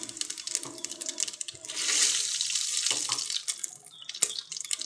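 Mustard and cumin seeds sizzling and crackling in hot oil during tempering, with a fine spattering of small pops that swells about two seconds in.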